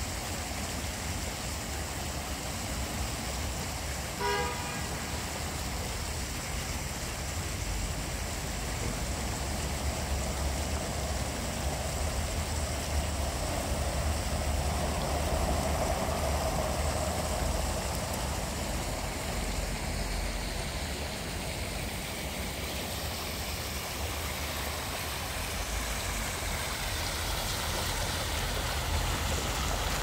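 Steady town-square background of distant traffic with a low rumble, and one short car-horn toot about four seconds in. Fountain water splashing comes in near the end.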